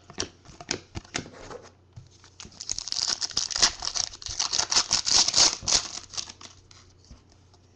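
Foil wrapper of a Prizm football card pack being torn open and crinkled by hand: a dense crackling rustle for about three seconds in the middle. Lighter clicks of cards being handled come before and after it.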